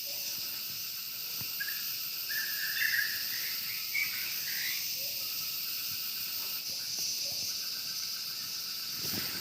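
Steady high-pitched chorus of forest insects such as crickets and cicadas, with a few short bird calls in the first half.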